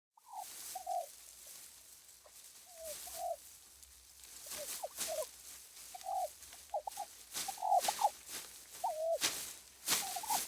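Poultry calling: a string of many short calls that slide up and down in pitch, some coming in quick runs.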